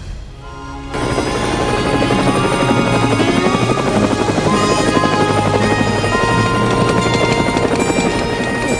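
Helicopter rotor blades chopping, coming in suddenly about a second in and running steadily, with background music over it.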